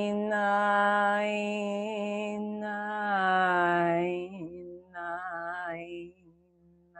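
A woman's voice toning in wordless light language: one long sung vowel held on a steady pitch for about four seconds, then softer, shorter wavering phrases near the end.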